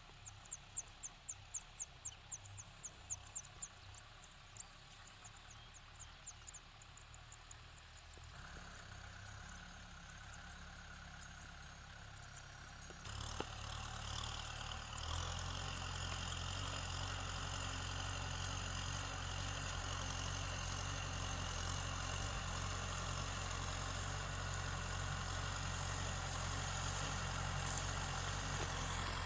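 Kubota tractor's diesel engine running: faint at first, it grows louder about eight seconds in and again about thirteen seconds in, then holds a steady low drone. For the first seven seconds a rapid series of high chirps, about four a second, sounds over it.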